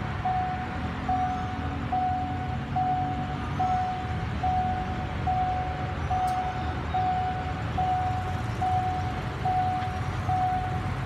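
Railway level crossing warning signal ringing: one steady electronic tone repeating evenly, a little more than once a second, as a train approaches. A low traffic rumble runs underneath.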